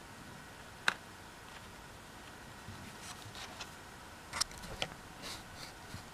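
Handling noise: one sharp click about a second in, then a scatter of small clicks and crinkles as a plastic blister package and a silicone key cover are set down on a cloth-covered surface, over a faint steady hum.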